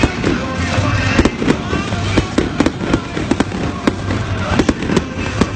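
Fireworks going off: a rapid, irregular string of sharp cracks and bangs, several a second, over a background of crowd voices.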